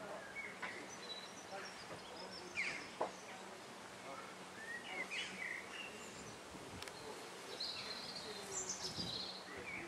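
Faint outdoor background with scattered bird chirps and calls, including a quick falling run of notes near the end. Two short knocks come about two and a half and three seconds in.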